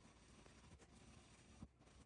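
Near silence: faint room tone, with one soft click about a second and a half in.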